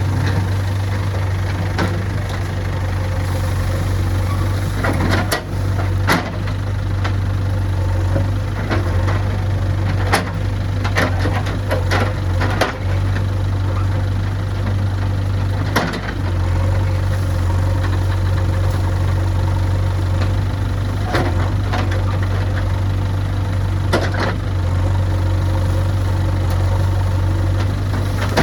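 JCB backhoe loader's diesel engine running steadily. Scattered sharp knocks and clanks come every few seconds as the machine works the soil.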